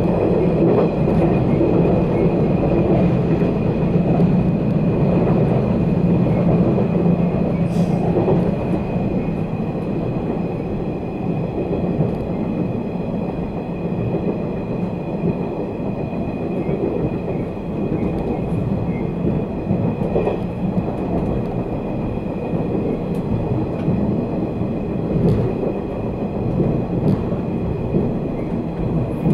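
Cabin running noise of a JR 485 series 3000 subseries limited-express car under way: a steady rumble of wheels on rail with a thin steady high tone over it, and a few faint clicks from rail joints. It gets a little quieter after about eight seconds.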